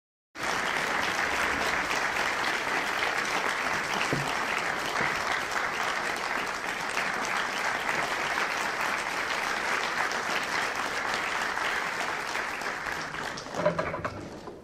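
Concert audience applauding steadily, the clapping dying away near the end with one short knock as it fades.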